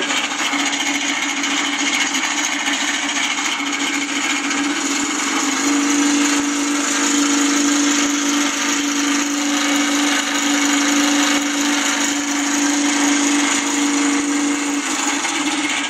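Electronic engine-sound module playing a simulated Wright Cyclone radial engine through small speakers at about 70% throttle: a continuous droning engine sound with a steady hum that grows louder about five seconds in and eases back near the end.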